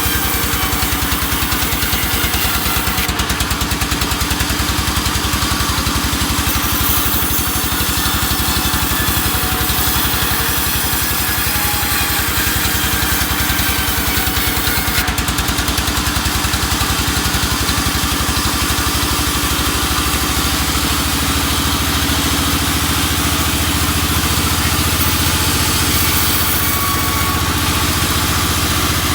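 A sawmill's engine running steadily at an even speed.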